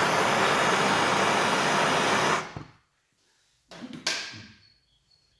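Gas blowtorch flame hissing steadily, heating the aluminium engine block to free the Loctite on a core plug, then shut off about two and a half seconds in. A few brief knocks follow, with a faint high metallic ring near the end.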